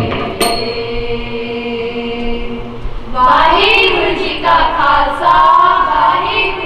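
A few tabla strokes and held notes, then a group of girls' voices singing a Sikh shabad (devotional hymn) together, coming in loud about three seconds in.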